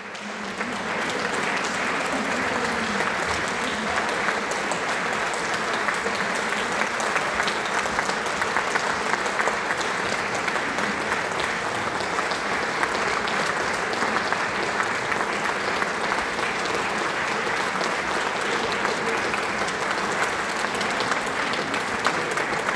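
Audience applauding steadily, fading in over the first second.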